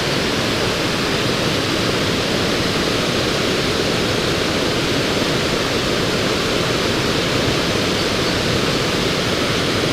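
Fast, high creek water rushing and tumbling down over rocks: a steady, even rush of water with no break.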